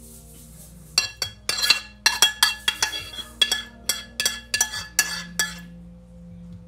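A metal spoon scraping and knocking against the inside of a metal saucepan to get the last of a thick sauce out. It makes a quick run of ringing clinks, about three a second, starting about a second in and stopping after about five and a half seconds.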